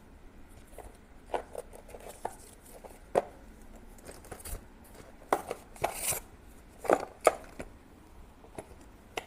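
A series of irregular sharp clicks and knocks of small hard objects being handled, with the loudest cluster in the second half.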